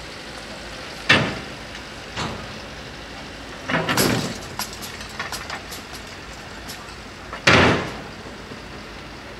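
Full level-crossing barrier booms with hanging lattice skirts coming down: sharp knocks about one and two seconds in, then a cluster of clatters around four seconds as the booms land, with light rattling from the skirts for a couple of seconds after. Another loud knock comes near the end.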